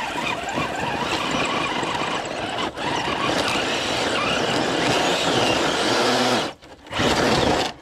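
Electric motor and geartrain of a Traxxas TRX-4 Sport RC crawler whining as it climbs a rock, the pitch rising and falling with the throttle. It stops briefly about six and a half seconds in, then whines again before cutting off.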